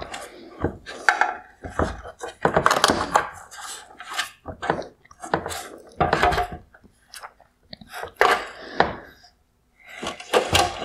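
Hard plastic parts of a 2020 Mercedes-Benz CLA LED headlight being handled: irregular clicks, knocks and rattles as the released projector unit is shifted about inside the housing, with a short lull a little after the middle.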